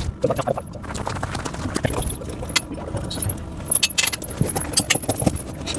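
Steel tractor tire chains being handled, the links clinking and rattling against each other in irregular clatters.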